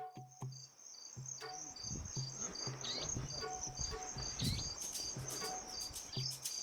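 Insects chirping in a steady, rapid pulsing at two high pitches, over a soft drum beat about twice a second, with a few short bird calls.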